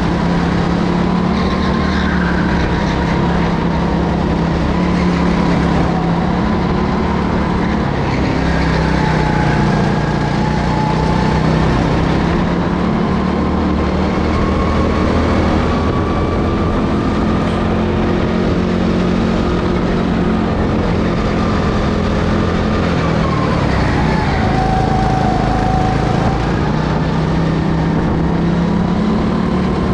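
Go-kart engine running hard on a lap, its pitch rising and falling with speed. The pitch drops about 23 seconds in as the kart slows, then climbs again a few seconds later.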